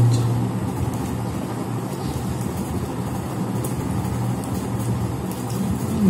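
Steady low hum with an even rumbling haze behind it, unchanging throughout.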